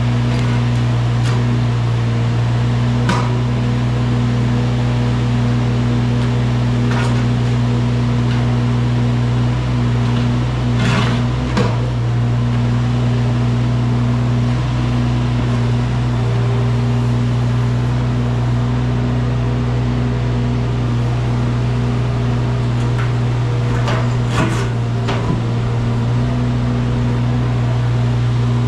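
Wacker Neuson mini excavator's diesel engine running steadily at a constant pitch, with a few sharp knocks, two clusters of them about 11 and 24 seconds in.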